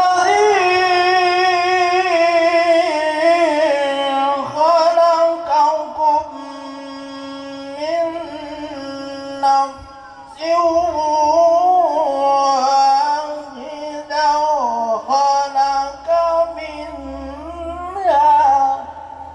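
A man's unaccompanied melodic Quran recitation (tilawah) into a hand microphone over a PA system: long held, ornamented phrases that bend in pitch, with short breaks for breath, ending near the close.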